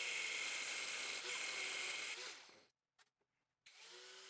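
Angle grinder with a cutoff wheel cutting through the steel bolt studs on a strut's top mount, a steady hissing whine for about two seconds that then dies away. After a short near-silent gap with one click, a fainter steady hum sets in.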